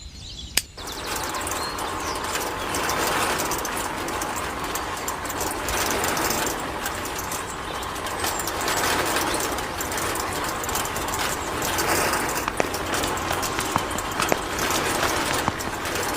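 A small geared motor of a miniature model machine running steadily, with a grinding, clattering noise and scattered clicks. There is a sharp click about half a second in.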